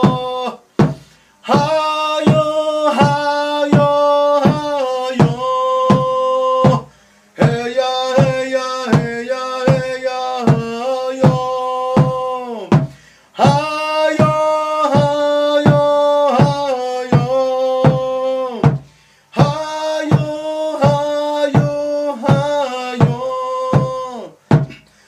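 A man singing a chant in Spanish, repeating "ella", over his own steady drum beat of about two strokes a second. The sung phrases pause briefly about every six seconds while the drum carries on.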